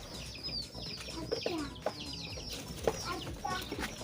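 A flock of chickens calling at feeding time: many short, high peeping calls that fall in pitch, overlapping one another, with a few lower clucks among them.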